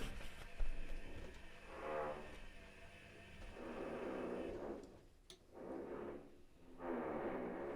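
Privileg Classic 30612 washing machine running on its 95°C boilwash programme, a pitched hum that swells and fades about four times.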